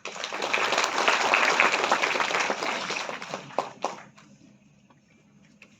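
Audience applauding. It starts suddenly, thins out to a few last claps and stops about four seconds in.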